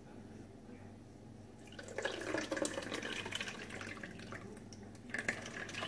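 Lemon juice and sugar syrup poured from a stainless steel bowl into a fine-mesh strainer, splashing into the bowl beneath. The pouring starts about two seconds in and tails off, with a second short splash near the end.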